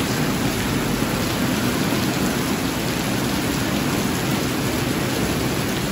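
Heavy rain falling steadily onto a flat concrete rooftop, an even hiss with no breaks.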